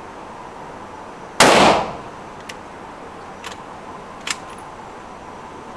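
A single rifle shot about a second and a half in, its echo dying away quickly in the enclosed range, followed by three small metallic clicks about a second apart as the rifle is handled.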